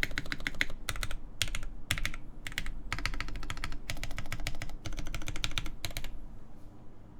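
Fast typing on a mechanical keyboard with lubed Durock L7 linear switches, a POM plate, a polycarbonate case and GMK keycaps: rapid runs of keystrokes in bursts that stop about six seconds in.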